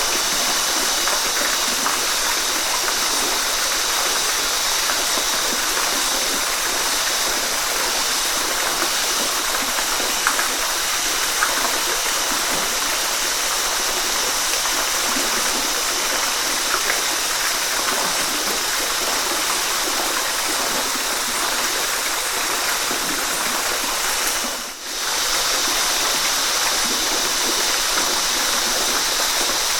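Steady rain falling in a forest, an even hiss with a few louder drops about ten seconds in. The sound briefly drops away and returns about 25 seconds in.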